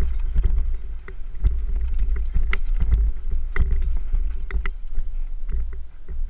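Mountain bike ridden fast down a bumpy dirt trail, heard from a helmet-mounted camera: heavy wind rumble on the microphone with irregular clicks and clatter of the bike over the ground, getting quieter near the end.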